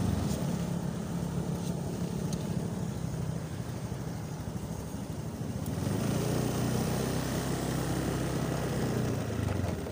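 Motorcycle engine running as it is ridden. The engine note grows louder about six seconds in and eases off near the end.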